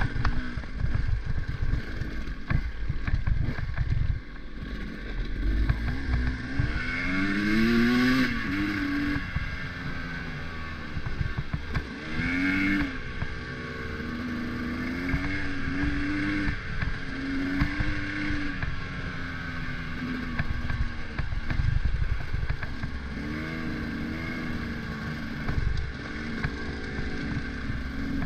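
A vehicle engine running while driving, its pitch climbing about six seconds in and again near twelve seconds, then holding a fairly steady note over road rumble.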